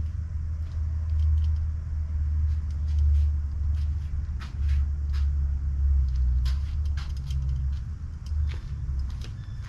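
A low steady rumble with scattered light metallic clicks and clinks as timing-chain sprockets and chain are handled and fitted onto the engine.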